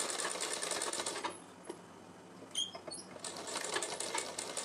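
Sewing machine stitching lace onto fabric at a rapid, even rhythm. It stops about a second in, a few light clicks follow, and then it starts stitching again about three seconds in.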